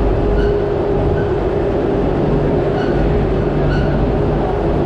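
Parking-lot tram rolling through a concrete tunnel: a steady running rumble with a constant hum. A few short high squeaks come and go.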